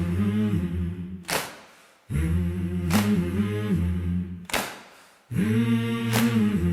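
Intro of a gospel-country song: voices humming low sustained chords in phrases of about three seconds, each fading into a short gap, with a sharp hit about every second and a half.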